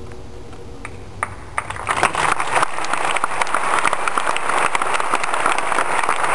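A large opera audience starts clapping as the orchestra's music ends. A few scattered claps come about a second in, then the whole crowd breaks into loud, sustained applause from about two seconds in.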